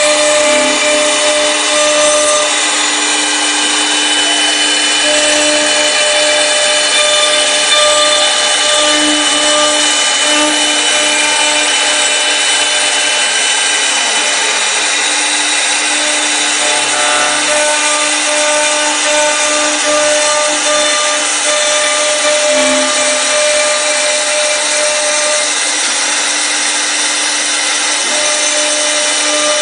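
CNC wood lathe's air-cooled engraving spindle cutting a spiral twist into a turning wooden blank. Several steady whining tones run over a continuous hiss of wood being cut.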